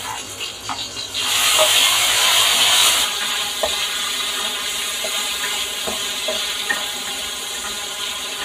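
Soy-marinated pork tipped into a hot oiled pan of frying garlic: a loud burst of sizzling about a second in settles after two seconds into steady frying hiss. A spatula scrapes and taps against the pan as the pork is stirred.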